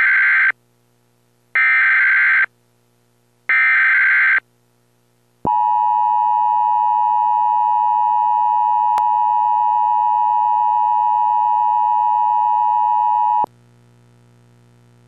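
Emergency Alert System broadcast: three one-second bursts of SAME header data tones, a second apart, then the steady EAS two-tone attention signal for about eight seconds, cutting off abruptly. Together they mark the start of an emergency alert and announce that a spoken warning message follows.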